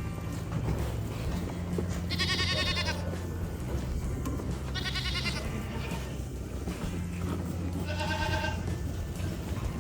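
Goats bleating: three separate wavering calls, each under a second long, about two seconds in, around five seconds and near eight seconds, the last one lower in pitch.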